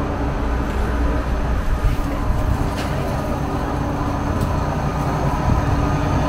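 Road traffic on a busy city avenue: a vehicle engine running steadily with a low rumble and a steady hum, slightly louder near the end.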